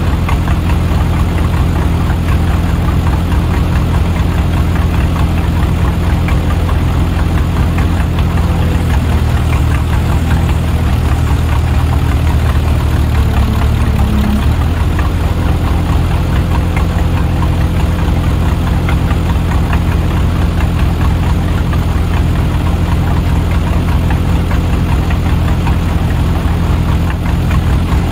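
A vehicle engine running steadily and loud, its pitch shifting for a few seconds near the middle before dropping back to a steady run about halfway through.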